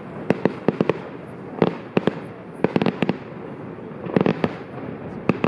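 Firework going off, sharp bangs in quick clusters about every second, over a steady hissing crackle.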